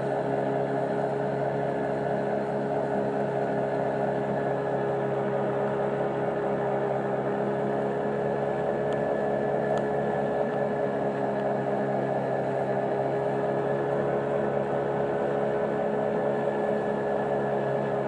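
Boat engine running steadily under way, a constant droning hum that holds the same pitch throughout.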